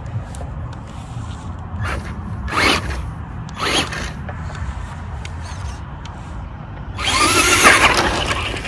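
Electric motor and gearing of a radio-controlled Traxxas Stampede truck whining in short bursts as it is driven, with the loudest, longest rev near the end, over a steady low rumble.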